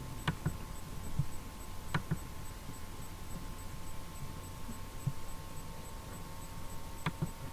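Steady electrical hum with a faint held tone, broken by a handful of short, sharp computer mouse clicks: two near the start, one about two seconds in, and two close together near the end.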